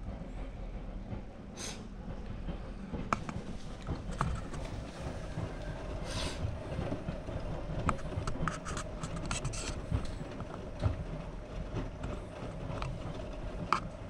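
AEG Lavamat front-loading washing machine in its main wash: the drum turning over with a steady motor hum while wet laundry tumbles and sloshes, with scattered clicks and knocks and a couple of brief hisses.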